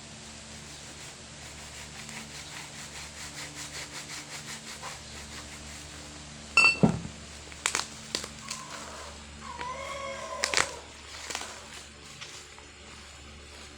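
Packaging being handled and opened: first a run of quick, even ticks, then several sharp knocks and crinkles, with a short squeak about ten seconds in.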